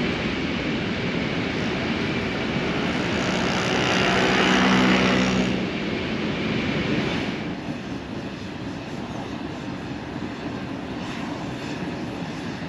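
Vespa scooter riding, with engine and wind noise. The sound swells to its loudest about four to five seconds in, where a low engine hum shows, then drops away in two steps and settles at a lower, steady level.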